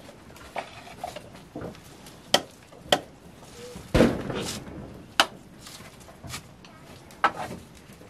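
A large curved knife chopping at dry wooden sticks: a series of sharp, irregular knocks roughly a second apart, the loudest about four seconds in.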